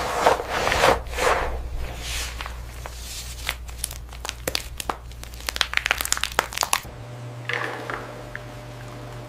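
Gloved hands stirring and scooping wet, pulp-coated cacao beans. First come a few squishy swishes, then a run of quick clicks and clatters as the beans tumble and knock together, over a steady low hum.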